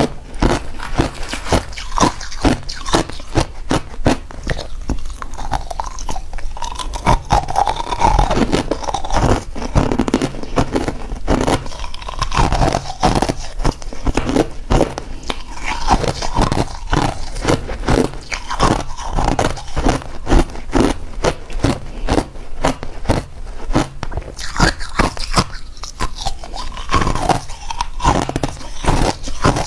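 Crushed ice crunching between the teeth as it is chewed: a continuous run of loud, crisp, crackling crunches, picked up close by a clip-on microphone.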